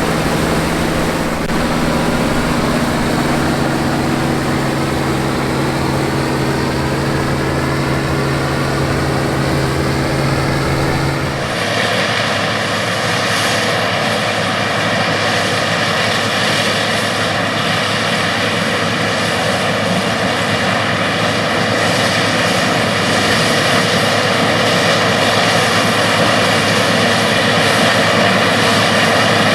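Classic combine harvesters working in standing corn: engine and threshing machinery running steadily. About eleven seconds in, the sound switches abruptly to a different machine with a noisier, higher-pitched hum.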